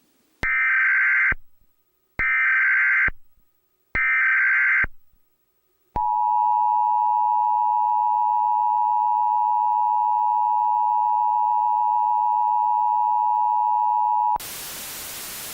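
Emergency Alert System SAME header: three short bursts of digital data tones, each just under a second long, then the two-tone attention signal held steady for about eight seconds. It cuts off suddenly near the end into a steady hiss of static.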